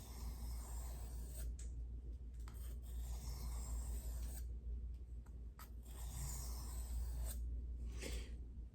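Knife blade being drawn across a sharpening stone: a series of long, even, hissing strokes, each a second or two, with short pauses between them.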